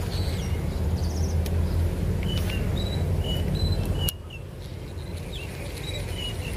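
Low steady rumble that drops off abruptly about four seconds in, with small birds giving short high chirps and quick falling whistles over it.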